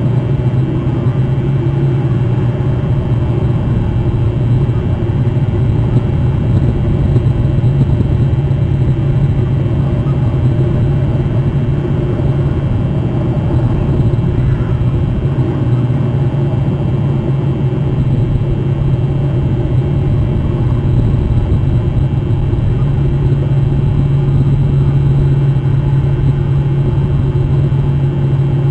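Steady, loud low rumble with a constant low hum that does not change.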